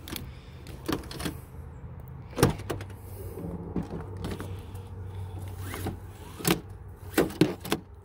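Seatbelt webbing on a 1999 Ford Ranger winding back into its pillar retractor, with a sharp knock about two and a half seconds in and several plastic clicks near the end as the latch plate meets and is handled at the pillar trim. The freshly cleaned belt is retracting freely again.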